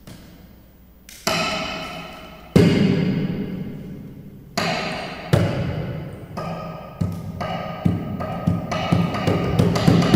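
Amplified cello played percussively: sudden attacks on the strings, each ringing and fading over a second or more. The attacks come more often and louder toward the end.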